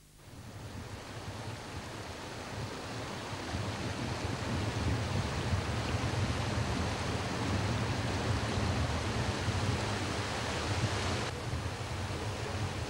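Steady rushing outdoor ambience with a low rumble, fading in over the first few seconds; near the end the hiss at the top drops away.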